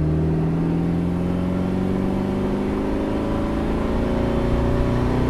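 Austin Healey 100M's four-cylinder engine pulling under acceleration with the top down, its pitch rising steadily as the revs climb, over road and wind noise.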